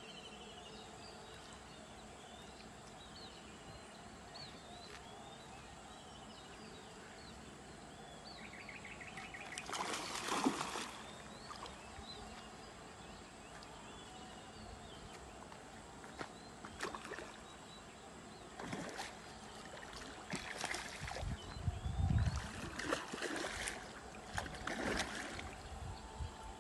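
Water splashing and swirling in bursts from about ten seconds in, as a large snakehead thrashes at the pond surface. Small birds chirp in the background.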